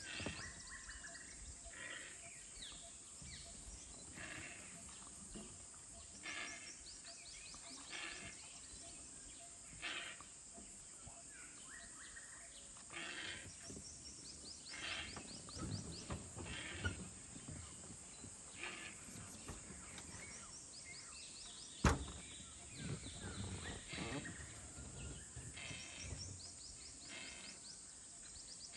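Forest ambience: a steady high insect drone, with short, rapid, buzzy chirps every second or two and a single sharp click about 22 seconds in.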